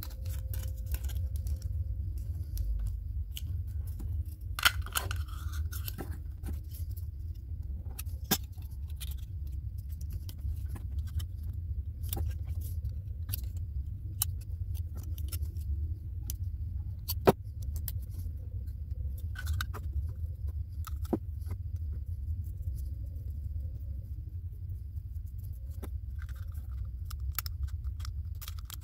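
Thin aluminium soda-can pieces being handled, trimmed with scissors and pressed together: scattered sharp clicks and crinkles of the metal over a steady low hum.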